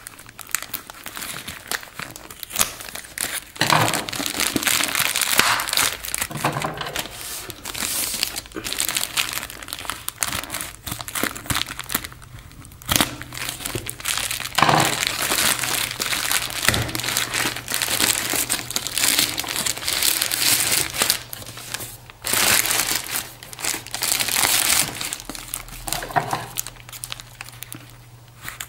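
Crinkling and rustling of a metallized foil-plastic mailer bag as it is cut and torn open with scissors, in irregular loud spells with short pauses.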